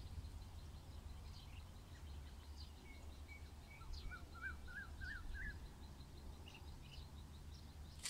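Small birds calling over low, steady outdoor background noise: a run of short chirps, then a wavering warble a couple of seconds later. A single short click comes near the end.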